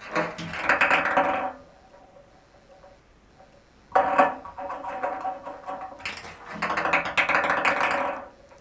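Ping pong ball rolling and skittering across a bathtub as a cat bats it: a rapid clatter with the tub ringing under it. It comes in two spells, one at the start lasting about a second and a half, the other starting about four seconds in and lasting about four seconds.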